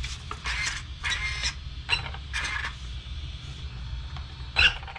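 Team Associated RB10 buggy's 3300 kV brushless motor and geared drivetrain spinning up in short throttle blips, wheels turning freely on the bench. There are about five brief bursts, each under half a second.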